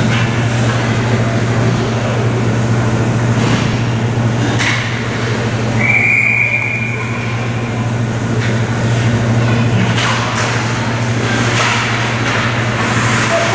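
Ice hockey referee's whistle blown once, a steady high note of about a second, near the middle. Under it runs the steady low hum of the indoor rink, with a few sharp clacks of sticks and puck on the ice.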